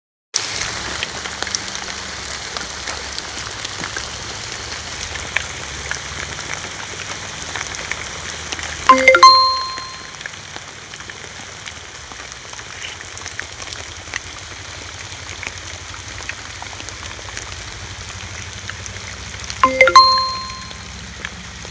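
Steady rain falling on a surface. It is broken twice, about eleven seconds apart, by a loud, short, bell-like ding that rings briefly.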